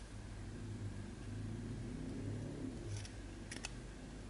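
A smartphone's SIM card tray handled at the phone's side: soft rubbing and handling noise, then about three light, sharp clicks of the tray against the phone frame about three seconds in.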